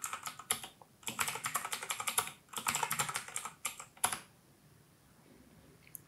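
Computer keyboard typing: a quick run of key clicks for about four seconds, then it stops.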